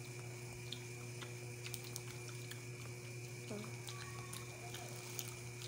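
Cooked peanuts being shelled by hand: scattered, irregular small clicks as the shells are cracked and handled, over a steady low hum.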